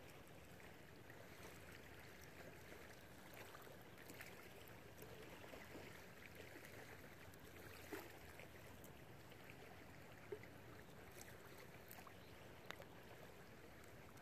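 Near silence: faint steady outdoor background hiss, with a few soft clicks.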